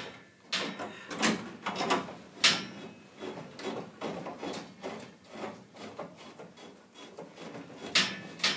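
Irregular metallic clinks and scrapes of a gas-pipe union being fitted back onto a furnace gas valve and wrenches being handled, with the sharpest knocks about two and a half seconds in and near the end.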